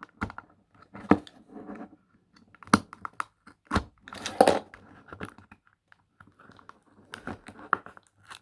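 Toy packaging being handled and worked open by hand: irregular crinkles, clicks and taps, with a few louder knocks.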